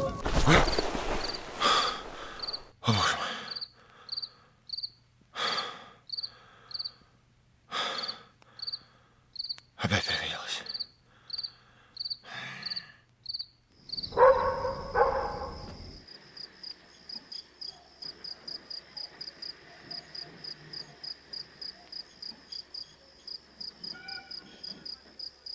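Crickets chirping in an even rhythm, about two chirps a second, with a string of short, louder noises roughly a second apart over the first half. After a brief lower sound a little past halfway, the chirping turns into a faster, steadier pulsing trill.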